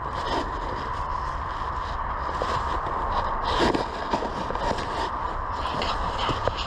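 Irregular rustling and scraping of brush and gear over a steady background hiss.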